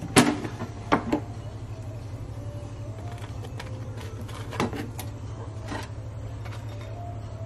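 Air fryer basket drawer pulled open with a sharp plastic clack, followed by a couple of lighter knocks about a second in and another a few seconds later as pizza slices are lifted out of the basket, over a steady low hum.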